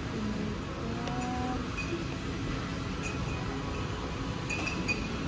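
Supermarket background noise: a steady low rumble with a few faint light clicks and clinks, most of them about four and a half seconds in.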